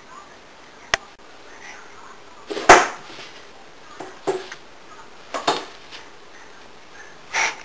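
Handling noise close to the microphone: a sharp click, then a loud thump about three seconds in, followed by several shorter bumps and rustles.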